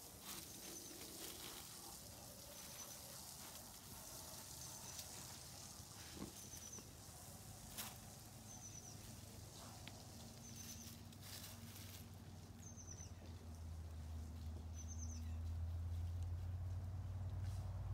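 Faint outdoor ambience: scattered rustling and crackling of dry leaves as a pot-bellied pig roots through leaf litter, with a small bird giving a short high chirp every second or two. A low hum builds through the second half.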